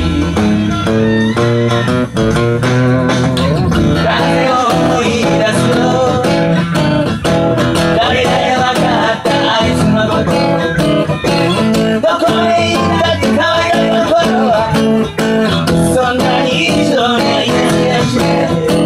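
Steel-string acoustic guitar strummed steadily in a blues rhythm, chords ringing without a break.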